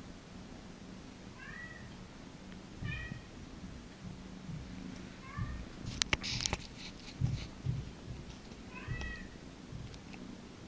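Domestic cat giving short, high mews, four of them spread out. About six seconds in there are a few sharp clicks and a brief rustle.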